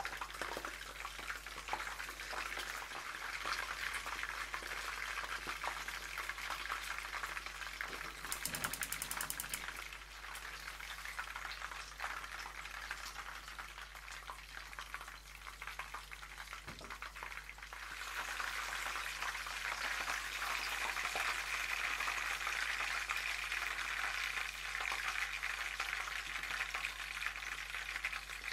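Chicken thighs coated in flour and beaten egg shallow-frying in hot oil in a frying pan: a steady crackling sizzle that grows louder about two-thirds of the way through.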